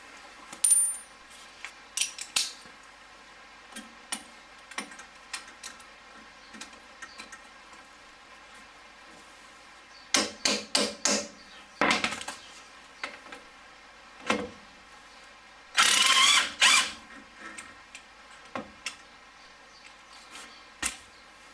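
Impact wrench hammering on the M8 triple-square bolts of a CV joint: a few short bursts about ten seconds in, then a longer burst of about a second, between scattered clicks and clinks of the socket and extension.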